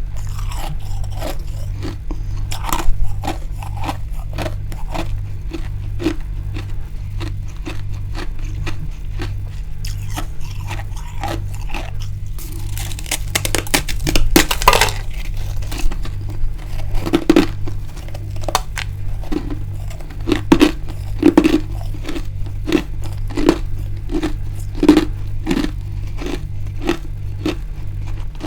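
Freezer frost being bitten and chewed close up: a long run of crisp crunches, thicker in the second half, with a stretch of continuous scraping, crackling crunch about halfway through. A steady low hum runs underneath.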